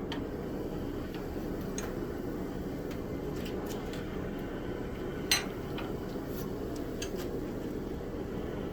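Forge running with a steady noise, with a few light clicks and one sharper clink about five seconds in.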